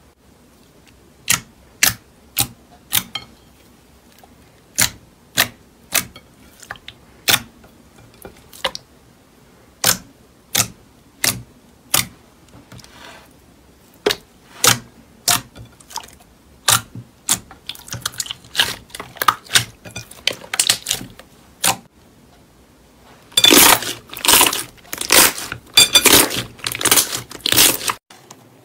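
Slime being pressed, poked and stretched by hand in a glass dish, giving sharp clicking pops, roughly two a second. Near the end the clicks turn into a dense, louder crackling flurry.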